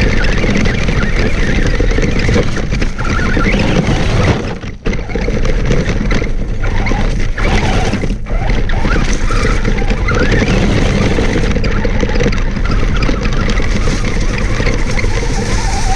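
Traxxas Stampede RC monster truck driving fast over gravel, picked up by a camera mounted on the truck: the motor's whine wavers with the throttle over the tyres crunching and scattering stones. The noise drops out briefly twice, about five and eight seconds in.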